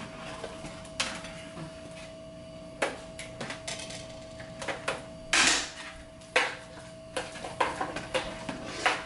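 Kitchen handling sounds: scattered clicks and knocks of a utensil against a metal cooking pot and things set down on the counter, with a short rush of noise about five seconds in. A faint steady hum runs underneath.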